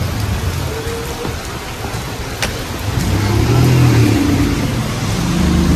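Street noise: a steady hiss of rain with a motor vehicle engine running nearby, growing louder from about three seconds in.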